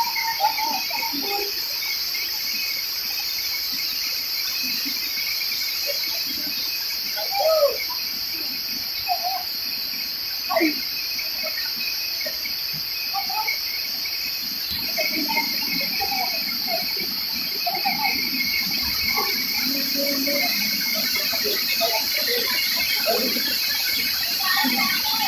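Steady, high-pitched chorus of forest insects, with short calls now and then underneath.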